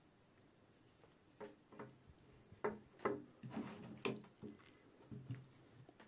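Handling noise from a braided USB-C cable and charging gear being moved and set down on a cloth-covered table: a run of light knocks and taps, sharpest between about two and a half and four seconds in.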